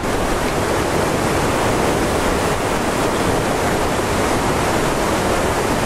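Steady, loud rush of a mountain river's flowing water.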